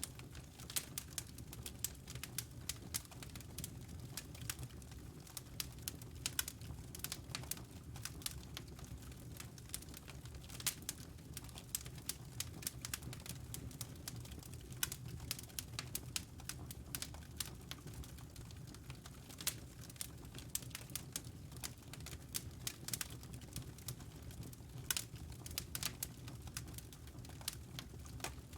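Wood fire crackling in a fireplace: irregular sharp pops and snaps, several a second, over a low steady rumble of the burning.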